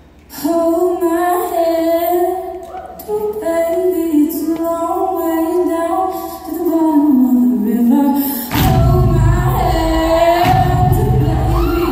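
A vocal group singing a cappella in harmony: several voices hold and move through sung chords starting about half a second in. About eight and a half seconds in, a deep bass and a beat come in under the voices.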